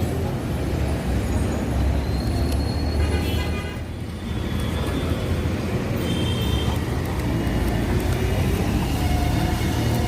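Steady low rumble of road traffic on a street, with a few faint short high tones and clicks over it.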